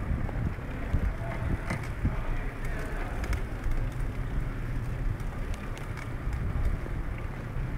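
Bicycle rolling over block paving on its back wheel in a wheelie, with wind rumbling on the microphone and a few light clicks from the bike.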